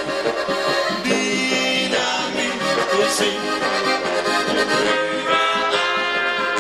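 Live band playing an instrumental passage of a volkstümliche folk song, with clarinets and a trumpet carrying the tune.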